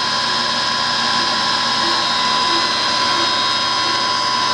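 Clausing 600 Series gear-head lathe running steadily at about 1000 RPM, its headstock gears giving a steady whine, with the carriage on longitudinal power feed.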